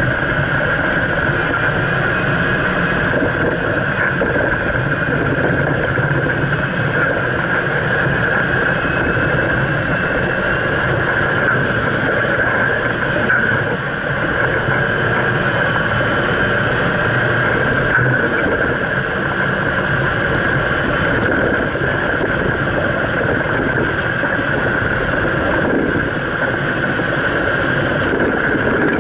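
2015 Jeep Wrangler Rubicon driving over sand, heard from a camera under the front suspension: a steady drone of engine and running gear with wind noise.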